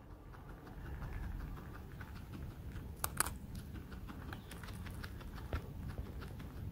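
Guinea pig chewing crisp, dry green food close to the microphone: a run of small crunches, with a louder crackle about three seconds in.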